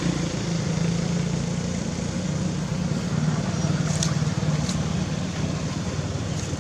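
A motor vehicle's engine running steadily with a low drone, and two brief clicks about four seconds in.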